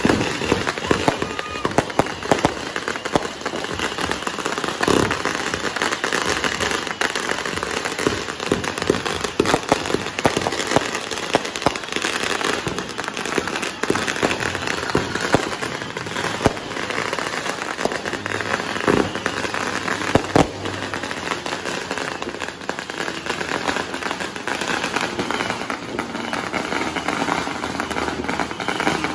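Fireworks going off overhead: a dense, unbroken barrage of crackling and popping with frequent sharp bangs.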